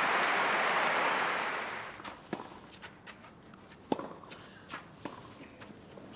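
Crowd applause that fades out over the first two seconds, then a tennis rally on a clay court: three sharp racquet strikes on the ball, the loudest about four seconds in, with fainter ticks of bounces and steps between.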